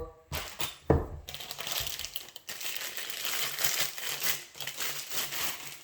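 Packaging being handled and opened: a sharp knock about a second in, then a steady run of crinkling and crackling.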